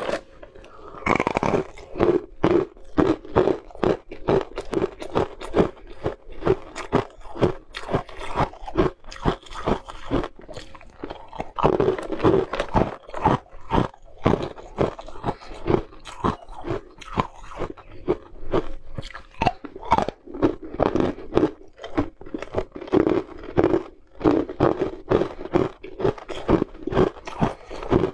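Blue-dyed ice cubes being bitten and chewed: a dense run of sharp, crisp crunches, several a second, as the ice cracks between the teeth.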